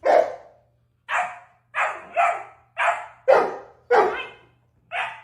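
A dog barking, about eight short, sharp barks in five seconds, some coming in quick pairs.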